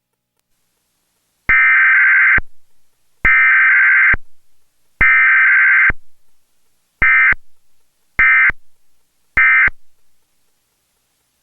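Emergency Alert System SAME data tones for a Required Weekly Test: three bursts just under a second long, about 1.7 s apart, carrying the alert header, then three short bursts about a third of a second long, the end-of-message code.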